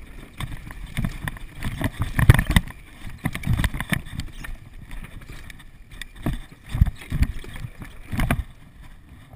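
Downhill mountain bike rattling and clattering as it rolls fast over wooden planks and a rough dirt trail: irregular knocks and thumps from the chain, suspension and frame over bumps, over a rush of tyre noise. The loudest knocks come about two seconds in and again near the end.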